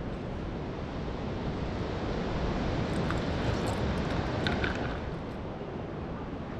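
Sea surf washing on the shore, mixed with wind on the microphone, as a steady rushing noise that swells a little midway.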